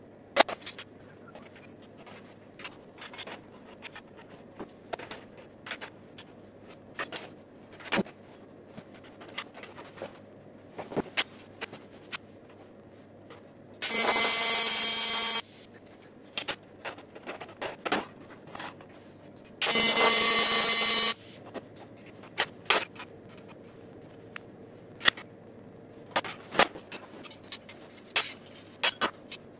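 Two short bursts of electric arc welding, each about a second and a half long and about six seconds apart, the arc crackling with a steady buzz under it. Before, between and after them come scattered clicks and knocks of metal parts and tools being handled on the bench.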